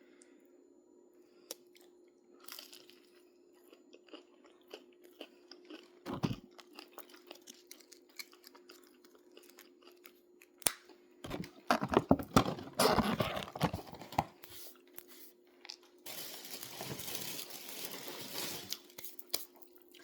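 Close-up biting and chewing of crispy fried chicken tenders, the breading crunching loudly in a burst about halfway through and again as a noisy stretch near the end, over a faint steady hum.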